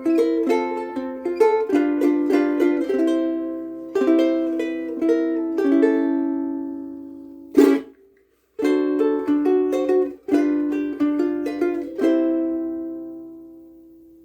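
Soprano ukulele strung with Aquila Sugar strings, picked and strummed in a lively passage of chords. A little past halfway one sharp stroke is followed by a moment of silence; the playing then resumes and the last chord rings out and fades.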